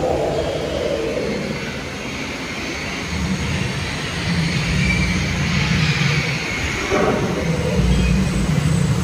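Indoor ride boat moving through its tunnel: a steady low rumble with a rushing hiss, growing louder about three seconds in.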